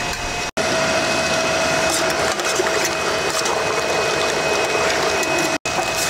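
Electric meat grinder running steadily with a constant motor hum while it minces cooked beef biryani. The sound drops out briefly twice.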